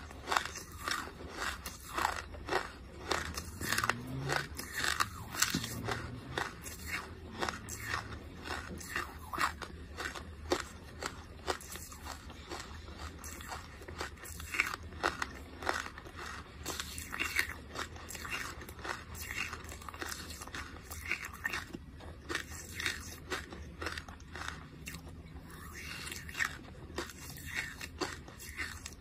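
Close-miked mouth chewing charcoal, with a steady stream of sharp, dry crunches, several a second.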